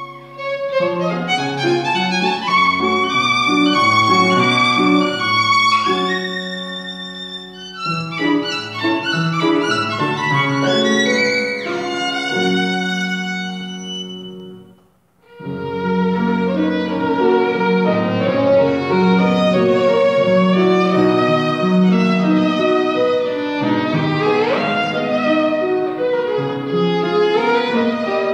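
Violin and grand piano playing a duet. The music breaks off briefly about halfway through, then both resume, with a rising slide on the violin later on.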